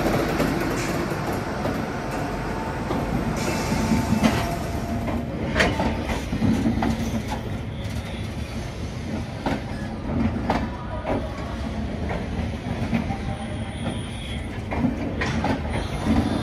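Trains passing close by. First the Indian Railways WDG4G diesel locomotive rolls past with a dense rumble. Then passenger coaches roll by, their wheels clacking again and again over rail joints.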